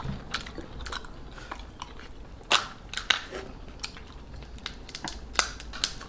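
A person eating cooked seafood: chewing, with scattered crisp cracks and clicks as a cooked crab's shell is broken apart by hand, the loudest crack about two and a half seconds in.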